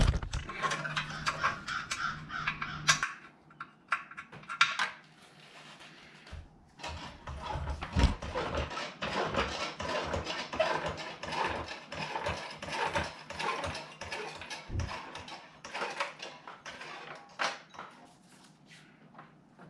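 Metal hand tools clicking, clinking and rattling against fasteners and parts during motorcycle disassembly. A faint steady hum runs for the first few seconds, and the clinks are busiest in the middle.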